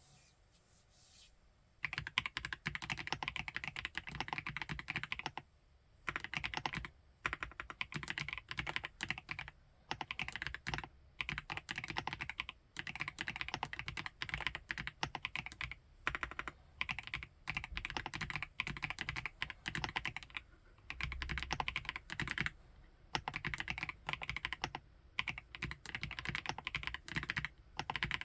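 Typing on a FL-ESPORTS OG98 mechanical keyboard with MX Ice Silver linear switches: fast continuous keystrokes that start about two seconds in, with a few brief pauses between runs.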